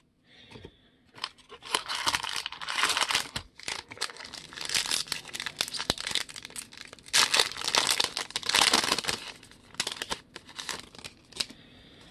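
Foil wrapper of a 2009 Upper Deck Signature Stars trading-card pack being torn open and crumpled, in several bursts of crinkling with small sharp clicks.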